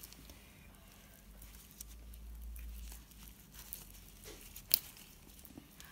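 Soft, faint squishing and rustling of gloved hands pushing slices of raw seasoned beef onto wooden skewers, with scattered small clicks and one sharper click near the end.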